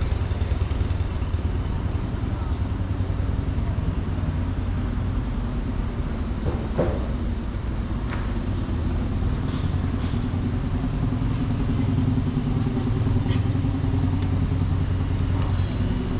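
City street traffic: a vehicle engine running steadily close by, a continuous low hum, with a few light clicks over it.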